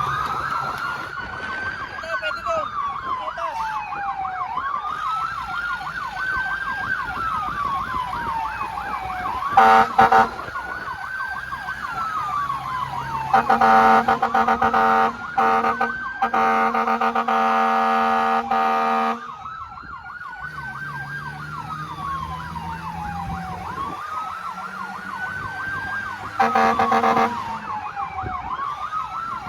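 Electronic siren of a responding emergency vehicle, a slow rising-and-falling wail with a fast warble over it. A loud horn cuts in with a short blast about ten seconds in, a long blast of several seconds in the middle and another short blast near the end.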